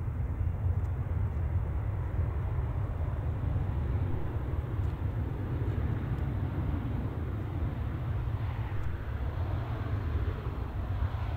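Jet engine noise from an Airbus A320 rolling down the runway after touchdown, with a steady low rumble underneath. The noise grows louder toward the end as the airliner comes nearer.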